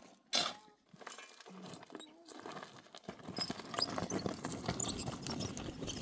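Hooves of livestock walking over stony ground: a dense run of small clicks from about three seconds in, after a short loud burst near the start.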